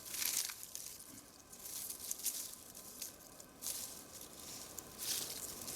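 Dry birch bark crinkling and rustling as it is handled and laid in a loose layer, in irregular bursts, louder at the start and again near the end.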